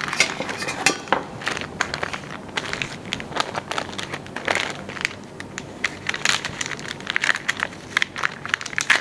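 Crinkling and rustling of a sterile glove pack's paper-and-plastic wrapper being handled, a run of irregular short crackles.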